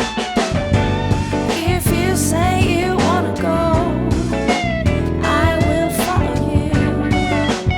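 Background music: a song with guitar and bass, with a wavering melody line that may be wordless singing.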